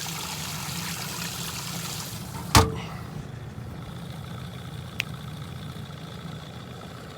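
Boat motor running steadily at low trolling speed, a low hum. A sharp knock, the loudest sound, comes about two and a half seconds in, with a faint click a couple of seconds later.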